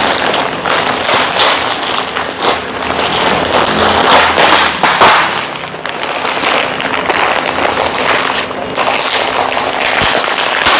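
Plastic packaging bags and sheeting crinkling and rustling as they are pulled apart and handled: a dense, continuous crackle.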